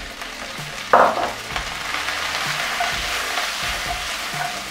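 Green asparagus and spring onions frying with zucchini in sesame oil in a hot pan: a sudden knock about a second in, then steady sizzling with stirring.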